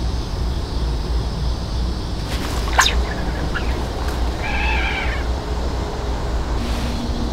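A cat meows once, briefly, a little past the middle, with a short sharp high sound a second or so before it. A steady low wind rumble on the microphone runs underneath.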